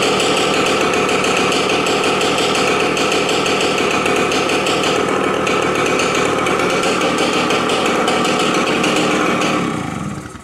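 1993 Yamaha RT100's small single-cylinder two-stroke engine running loud and steady, then shut off near the end, dying away.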